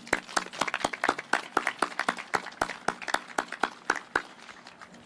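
A small group clapping, with one person's sharp claps loud and close to the microphone. The clapping stops about four seconds in.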